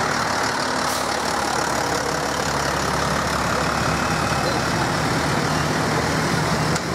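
Tour coach's diesel engine running steadily as the bus moves off slowly at low speed.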